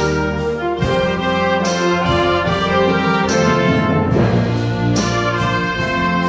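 Concert band playing sustained, brass-led chords over a low bass line, with a bright high accent recurring about every second and a half.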